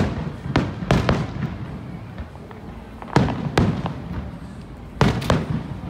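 Fireworks bursting: irregular sharp bangs, a quick cluster of four or five in the first second and a half, two more about three seconds in, and a pair near the end, each trailing off briefly.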